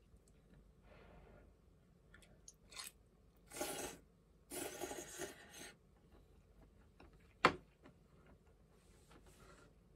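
Someone eating: two noisy slurps of broth from a bowl raised to the mouth in the middle, then a single sharp knock as the bowl is set back down on the wooden tray, with faint chewing around them.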